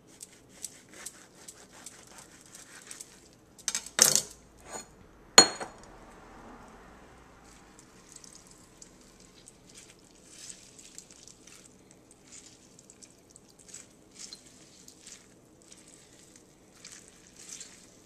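A kitchen knife cuts through an orange on a stone countertop, with light ticks. Around 4 and 5.5 seconds in come two sharp knocks of kitchenware, the second the loudest and ringing briefly. Then faint wet crackling as cut orange halves are squeezed by hand over a bowl.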